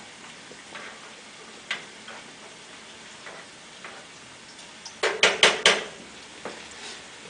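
Sausage and onion sizzling in a frying pan, with scattered light scrapes and clicks from a stirring utensil. About five seconds in, the utensil knocks sharply against the pan four times in quick succession, with a short ring.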